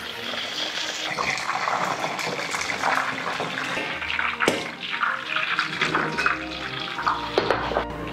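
Batter-coated chicken pieces deep-frying in hot oil in a wok, a steady sizzle with dense crackling. A sharp knock about halfway through.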